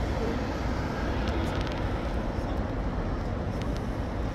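Motorcycle engine idling: a steady low rumble.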